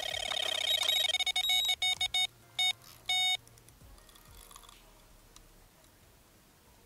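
Electronic carp bite alarm sounding a run: a fast, unbroken string of high beeps as a fish takes line. It slows to a few separate beeps and stops about three seconds in, as the rod is lifted from the alarm.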